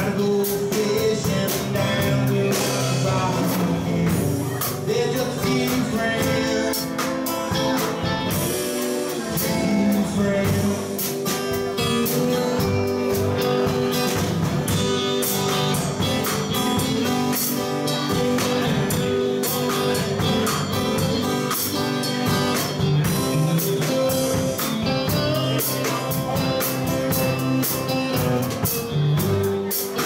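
Live country-rock band playing: acoustic guitar, electric lead guitar and drum kit performing a song together.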